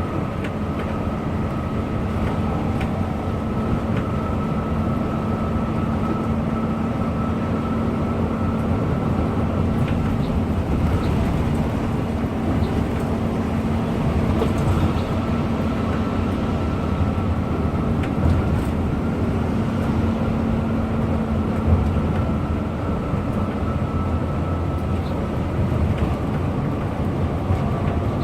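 Intercity bus driving at a steady speed: continuous engine drone with road and tyre noise, and a faint steady whine above it.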